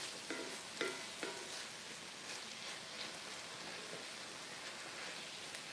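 Ground beef and vegetables sizzling steadily in a cast iron skillet while being stirred with a wooden spatula, with a few short scraping strokes across the pan in the first second or so.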